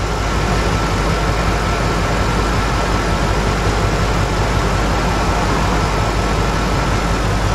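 2004 Lincoln Navigator's 5.4-litre V8 idling rough with a cylinder misfire, heard steadily from under the open hood, with a thin steady high whine on top.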